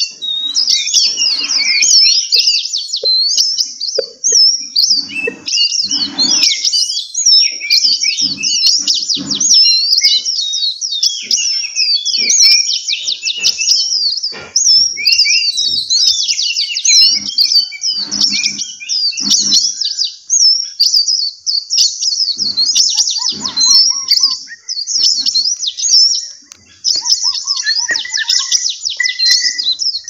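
Many small caged songbirds chirping and twittering at once, a dense chorus of quick high chirps and trills with hardly a pause.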